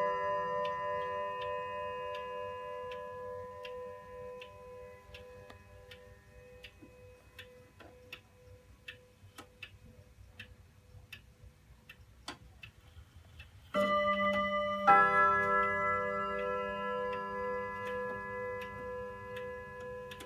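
Weight-driven Dutch Frisian tail wall clock with a Hermle movement ticking steadily about twice a second while the ring of an earlier strike dies away. About 14 s in it strikes again, two blows about a second apart, the second louder, each ringing on and slowly fading.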